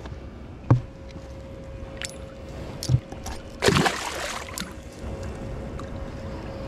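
A few knocks and clicks of handling on the water, then a loud splashing rush of water lasting about a second, about three and a half seconds in. A faint steady tone comes in around the same time and holds.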